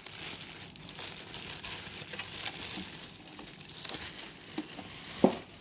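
Packaging crinkling and rustling as a boxed air purifier is unwrapped by hand, with many small crackles throughout. A single sharp knock about five seconds in is the loudest sound.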